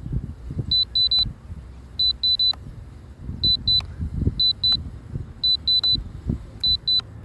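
Drone remote controller beeping as the camera tilt is lowered: short high beeps in quick pairs, about once a second. Gusty wind buffets the microphone underneath.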